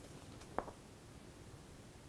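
Paper handling on a printed instruction manual being flipped through: a single short tap of a page about half a second in, otherwise faint room tone.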